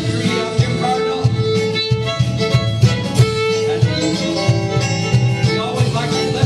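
A live band plays an instrumental passage with guitars, bass guitar and an electronic drum kit, with a sustained melodic lead line over them.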